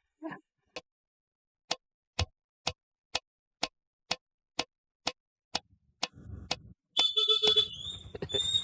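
A clock ticking about twice a second, then from about seven seconds in a loud, shrill ringing like an alarm going off.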